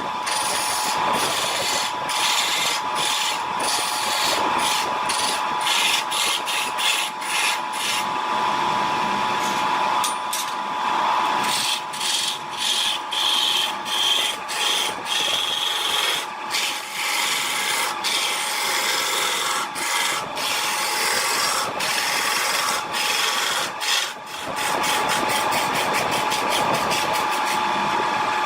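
Wood lathe running, with a tool scraping and cutting the spinning wood in a continuous rasping stream broken by many brief lifts of the tool, over a steady motor hum.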